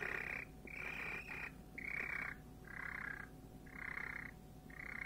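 A young Easter Egger pullet churring: a series of short rolling trills, about one a second. This is the hen's contented, purr-like call, a sign that she is relaxed and happy.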